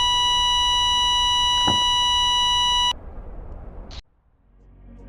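A continuous high-pitched electronic beep tone that cuts off suddenly about three seconds in. A brief click follows, then music begins to fade in near the end.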